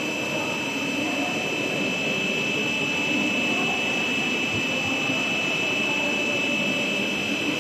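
Cast stretch film extrusion line running: a steady drone of its extruder motors, gearboxes and blower, with a steady high whine over it.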